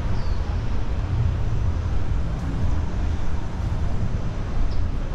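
Outdoor urban background noise: a steady low rumble like distant traffic, with a faint short high chirp just after the start and another near the end.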